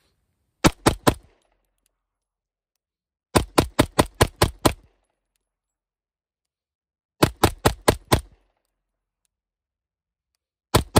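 Springfield Prodigy 2011 pistol in 9mm fired in rapid strings, about five shots a second: three shots, then about seven, then five or six, then another string starting near the end.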